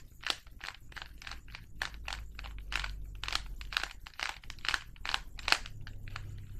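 Rubik's Cube being twisted by hand, its plastic layers clicking and clacking in a quick, irregular series of turns.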